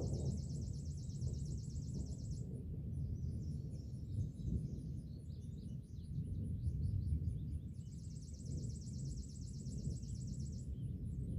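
Distant thunder rumbling low and long. A high, fast trill sounds twice over it, with scattered bird chirps in between.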